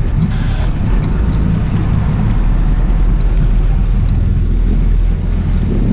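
A sport-fishing boat's engines running under power, a steady low rumble, with wind buffeting the microphone.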